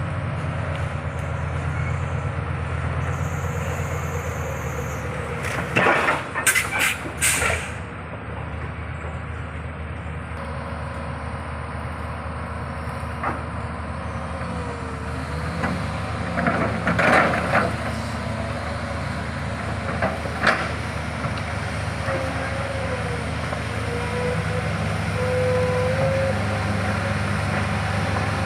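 Old excavator's diesel engine running steadily, with loud noisy bursts about six seconds in and again around seventeen seconds, and a faint wavering whine later on.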